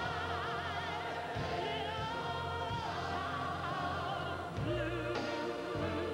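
Show-tune stage number: voices holding long notes with wide vibrato, backed by a large chorus and instrumental accompaniment with a steady bass.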